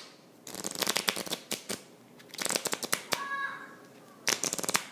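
Deck of playing cards riffled along its edge with the thumb, in three quick runs of flicking clicks.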